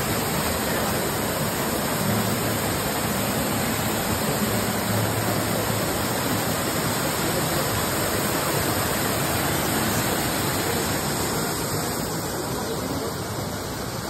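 Waterfall pouring into a rock plunge pool: a steady rushing hiss of falling water, easing slightly near the end.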